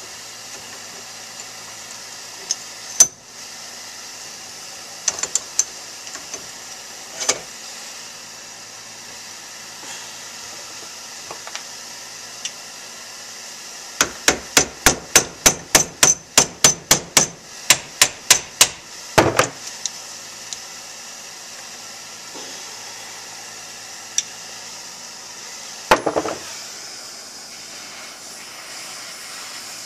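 Metal tools striking a rusted needle bearing in a motorcycle's suspension-linkage rocker: a few single knocks, then about halfway through a fast run of about fifteen hammer taps, roughly three a second, on a rod set in the bearing bore to drive the needles and cage out. Near the end there is a knock, then a gas torch hisses steadily as it heats the bore.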